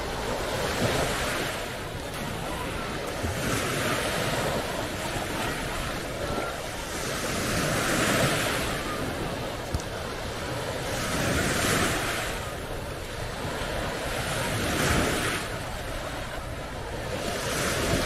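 Small sea waves breaking and washing up a sandy shore, the surf swelling and fading about every three to four seconds.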